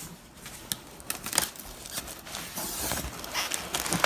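Packaging crinkling and rustling in irregular bursts as a boxed item is handled and unpacked.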